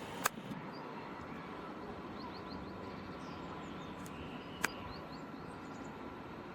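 Steady outdoor background noise with a few short bird chirps. Two sharp clicks about four seconds apart.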